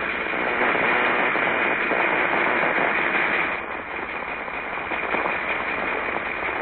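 Cartoon sound effect of the mad scientist's ray machine powering up: a steady hissing, crackling noise that swells slightly and then eases off about four seconds in.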